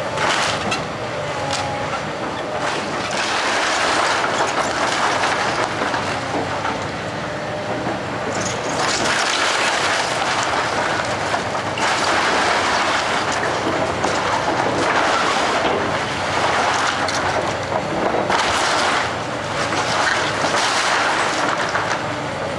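Komatsu hydraulic excavator demolishing a wood-framed house: a continuous clattering crunch of breaking boards and falling debris that swells and eases in surges, with the machine running underneath.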